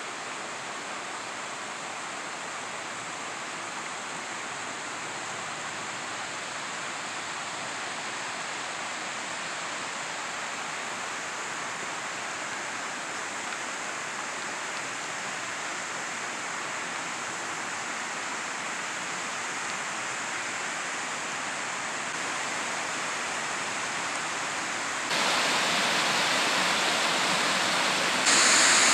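Rushing water of a rocky mountain creek tumbling over cascades, a steady rush that grows slowly louder, then jumps louder in two sudden steps near the end.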